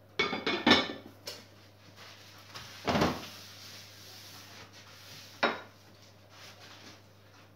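Ceramic plate and bowl being handled and set down on a kitchen counter: a quick cluster of clinks and knocks at first, a louder knock about three seconds in and one more sharp knock a couple of seconds later.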